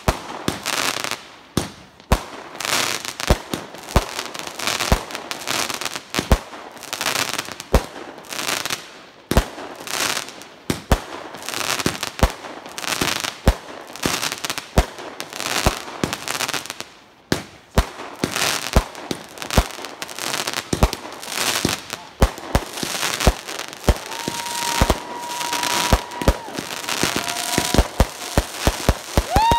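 Consumer fireworks cake firing shot after shot, a steady run of sharp bangs roughly one or two a second, with crackling bursts between them. Near the end, whistling tones join in.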